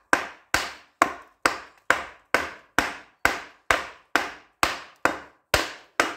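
A wooden mallet tapping the steel drive hub down onto the splined shaft of a Linde HPR100 hydraulic pump: even, steady blows about two a second, each a sharp knock with a short ring.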